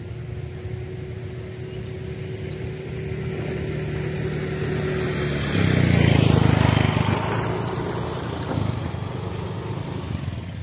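A motor vehicle passing by: a steady engine hum grows louder, peaks about six seconds in, then fades away.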